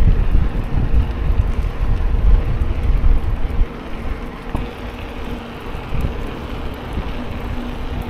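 Wind buffeting the microphone on a moving bicycle, a loud gusty rumble, over the steady hiss of tyres rolling on asphalt.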